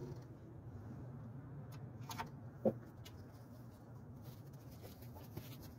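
Quiet workshop room tone: a low steady hum, a faint click or two, and one short light knock about halfway through.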